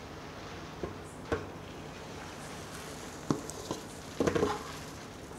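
A few light knocks and clinks of a steel ladle while dosa batter is scooped and poured onto a tawa, the busiest cluster a little past four seconds in, over a faint steady hiss.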